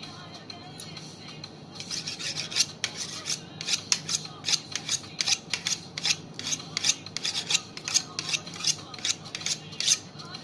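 A butcher's knife being honed on a sharpening steel, quick scraping strokes about three a second that start about two seconds in and stop near the end.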